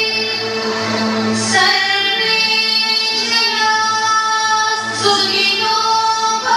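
Indian classical dance music: a female voice singing long held notes over a steady drone.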